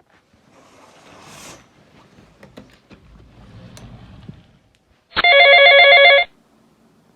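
A phone ringtone rings loudly for about a second, about five seconds in: a pattern of several pulsing tones stacked together. Before it, faint rustling and a few clicks.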